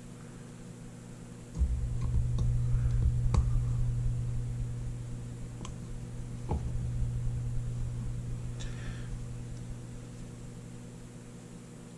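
Small steel parts of an antique Forehand Arms revolver clicking against each other as they are fitted into the frame by hand, with a short scrape near the end. A low steady hum runs under it and grows louder about a second and a half in.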